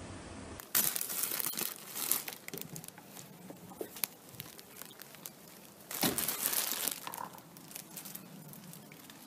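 Crinkling and tearing of packaging being handled, a dense crackle of sharp clicks that comes in louder stretches about a second in and again around six seconds in.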